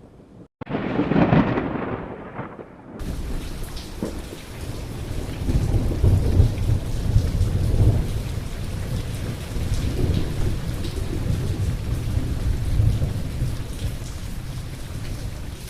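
A loud thunderclap about half a second in, right after a brief dropout. Then, about three seconds in, heavy rain cuts in abruptly as a steady hiss, with thunder rolling and rumbling low beneath it.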